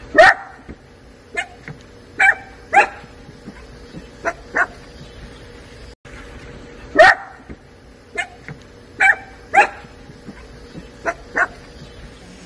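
Small dogs barking in play: short, high-pitched yaps, about fifteen in all at uneven intervals, several in quick pairs.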